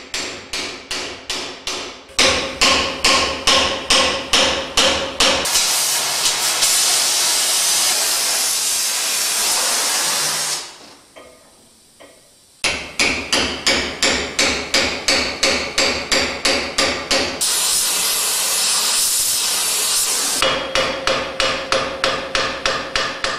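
Hand hammer striking a chisel into red-hot steel on an anvil in quick, even blows, about three a second, each with a ringing note, splitting the sepals of a forged rose from its stem. Twice the hammering stops for a few seconds of steady hiss from the gas welding torch reheating the work. There is a brief lull about eleven seconds in.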